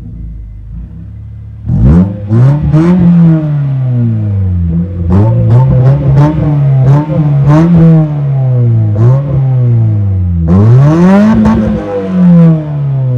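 Car engine idling, then revved over and over in quick blips, with one longer, higher rev near the end.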